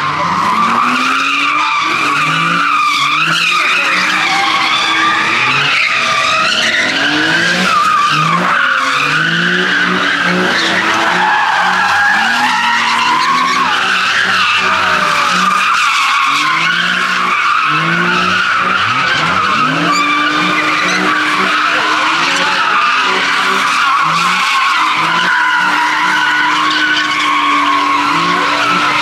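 A car spinning donuts: its tyres screech without a break while the engine revs rise and fall again and again.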